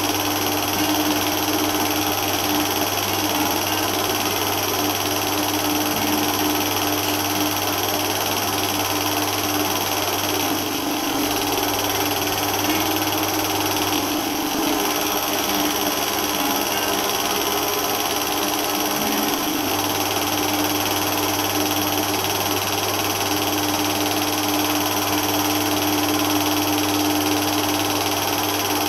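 Steady mechanical-sounding noise: a constant low hum under an even hiss, with no separate events.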